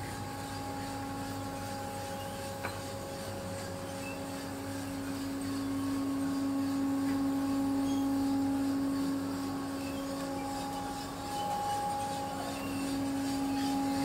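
A machine's motor running with a steady hum, getting louder in the middle and again near the end, with a single short click a few seconds in.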